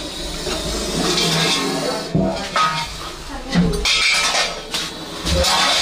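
Short bursts of hissing from an Indian spectacled cobra, among knocks and clinks of kitchen containers being shifted.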